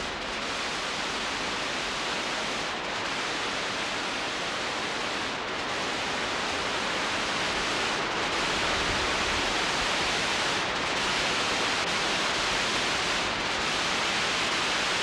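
Heavy hurricane rain pouring down in torrents, with wind through the trees, as one steady hiss that grows slightly louder partway through.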